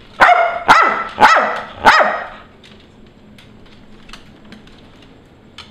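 A small terrier-mix dog barks four times in quick succession, sharp loud barks packed into the first two seconds.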